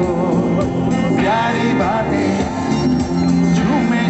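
Live band playing on stage, with electric guitars and keyboards under a singer's voice carrying the melody, heard from within the audience.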